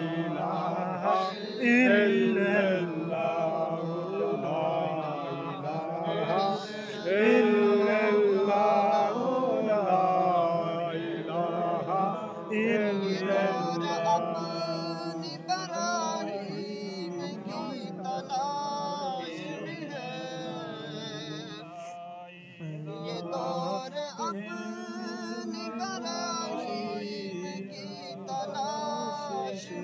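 A man chanting Islamic dhikr, the remembrance of God, in long, wavering melodic notes over a steady low hum.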